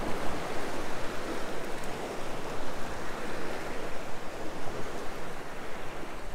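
A steady, even wash of water and wind noise, rising and falling slightly, with no engine tone or distinct splashes.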